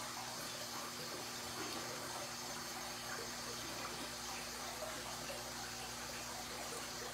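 Steady rush of aquarium aeration, air bubbles streaming up through the water, with a low steady hum underneath.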